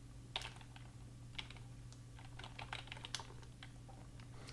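Faint typing on a computer keyboard: irregular key clicks as a word is typed, over a low steady hum.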